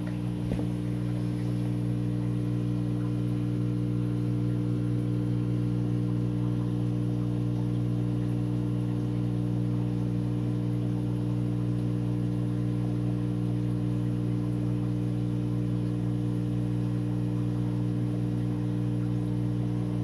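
Steady electric hum of an aquarium's pump and filter motors, holding one low pitch without change.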